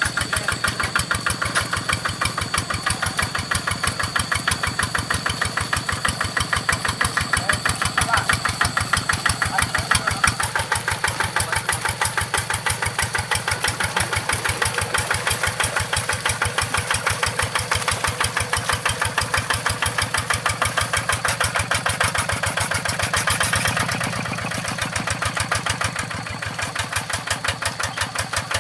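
Single-cylinder diesel engine of a G1000 two-wheel hand tractor running with a steady, rapid chugging beat while it drives its cage wheels through the paddy. The sound drops briefly near the end.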